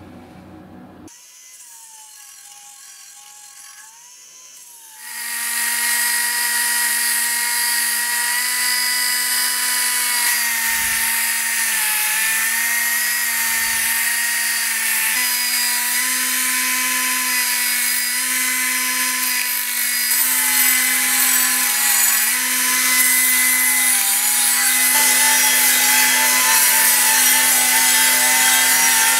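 Nitto Kohki pneumatic belt sander running on compressed air: a steady whine over a strong hiss as its abrasive belt sands metal. It becomes much louder about five seconds in, and the pitch shifts slightly several times.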